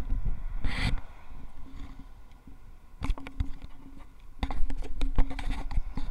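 Handling noise from a finger rubbing and tapping on a handheld camera close to its microphone: a brief rub about a second in, then runs of scrapes and clicks with low rumble about three seconds in and again from about four and a half seconds.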